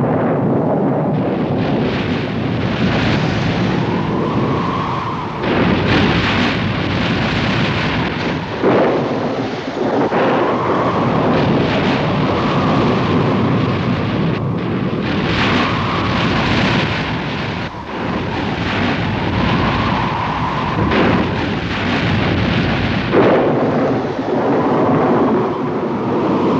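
Storm sound effects on an old film soundtrack: thunder crashing and rumbling again and again over a loud rush of wind that rises and falls in pitch.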